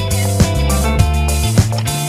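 Background music with held notes over a steady beat, a little under two beats a second.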